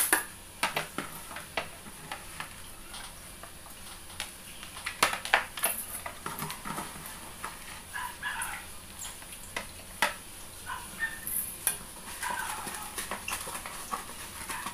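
Metal scoop clinking and scraping against a plastic tub and a steel pot as soaked rice is scooped out and drained, with scattered sharp knocks.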